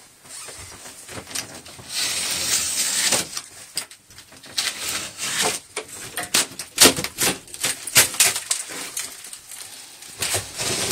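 Old gypsum board (drywall) being broken and torn out of a shower wall: a scraping, crumbling rush about two seconds in, then a run of sharp cracks and knocks.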